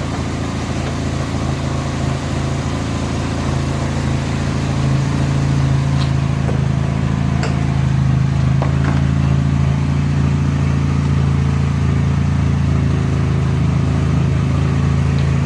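A vehicle engine running steadily at idle, with a few faint clicks over it.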